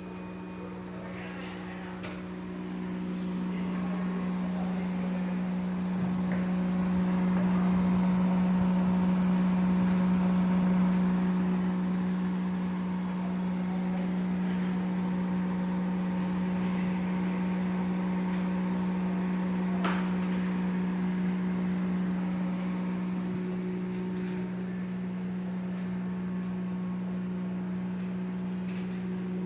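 Compressor of a battery-operated deep freezer running with a steady hum. It grows louder a few seconds in, is loudest around the middle, then eases a little.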